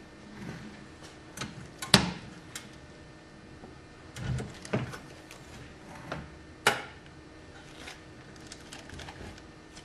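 Manual tray sealer's lid and handle clunking and clicking as the lid is brought down, pressed shut over a plastic tray and lifted open again: a handful of sharp knocks, the loudest about two seconds in and another strong one near seven seconds, then lighter clicks as the tray is handled near the end.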